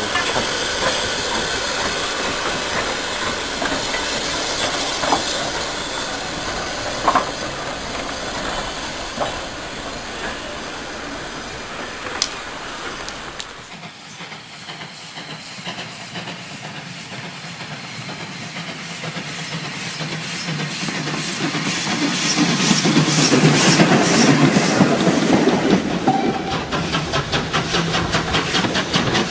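Model railway trains running on a layout: steam-locomotive hiss and chuffing with wheel clicks over the track. After a cut about halfway through, a train grows steadily louder as it approaches, with a fast, even beat.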